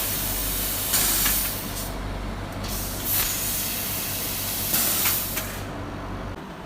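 Laser welding and cutting machine running: a steady low hum under a hiss of gas, with louder surges of hiss about a second in, just after three seconds and around five seconds. The hum cuts out shortly before the end, leaving a fainter hiss.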